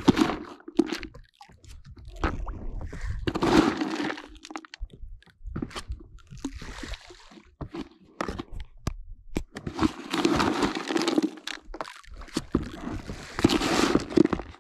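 Dry carp feed, pellets and crumbled oilcake, being scooped and poured by hand, crunching and rattling in about five short bursts a few seconds apart.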